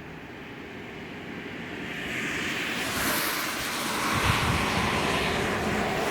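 Road traffic noise, a vehicle's tyre and engine hiss swelling over the first few seconds and then staying loud.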